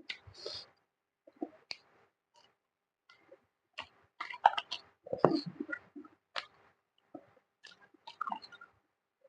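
Close-miked eating: irregular bursts of chewing and biting on food with sharp clicks, loudest about halfway through.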